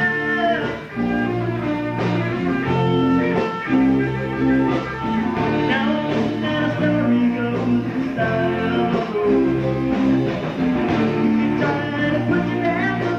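Rock band music led by guitar, with singing.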